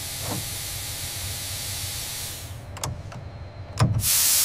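Steady hiss of pressurised gas from pressure hoses that fades out about two and a half seconds in. A few sharp clicks and a thump follow, then a louder burst of hiss near the end.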